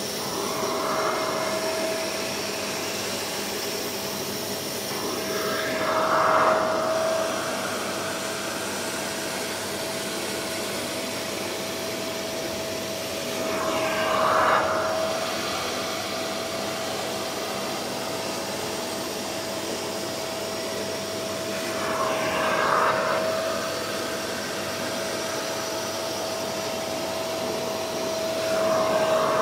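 A spray-extraction carpet cleaner's suction motor runs steadily with a constant whine. Its hand nozzle is drawn across a fabric car mat, and the suction swells louder and hisses about every eight seconds, once per stroke.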